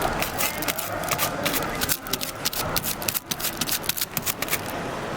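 Rapid, irregular clicking and tapping, several sharp clicks a second, over a steady background noise; the clicks die away about four and a half seconds in.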